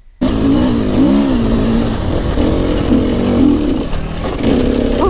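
Dirt bike engine revving hard under load on a steep, loose hill climb, its pitch rising and falling with the throttle. It comes in suddenly about a quarter second in.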